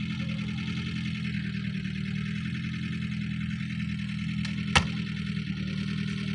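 VAZ-2107 Zhiguli's four-cylinder engine idling steadily. A single sharp knock comes about three-quarters of the way through.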